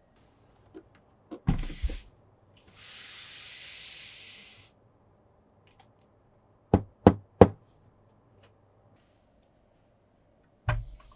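Hardware being handled: a short rustling thump, then a high hiss lasting about two seconds, then three sharp knocks in quick succession and another thump near the end.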